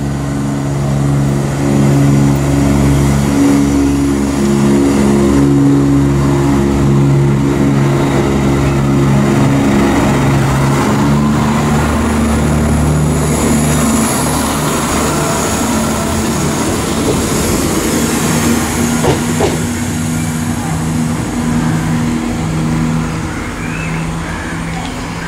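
East Midlands Railway Class 170 Turbostar diesel multiple unit running along the platform: a steady drone from its underfloor diesel engines, with wheel and rail noise.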